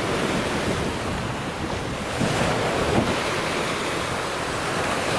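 Black Sea surf washing against the shore, with wind blowing across the microphone.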